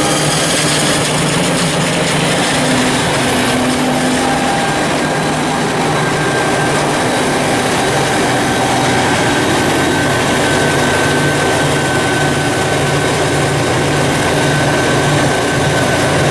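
Self-propelled forage harvester chopping maize, its engine running steadily under load with a constant high whine over the drone.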